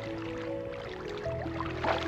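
Background music of long held notes over a steady bass tone, which swells about a second in. A few short splashy water sounds lie underneath, the clearest near the end.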